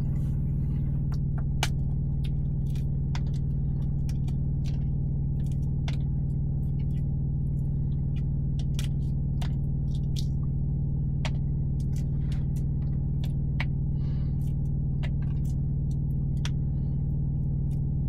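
Eggshell being cracked and peeled off a hard-cooked egg by hand: scattered small crackles and clicks as bits of shell break away. Under it runs a steady low drone, the loudest sound throughout.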